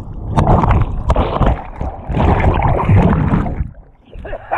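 Sea water rushing and gurgling over a GoPro action camera as it is dragged under and along the surface. The rushing comes in loud surges and drops away briefly about four seconds in.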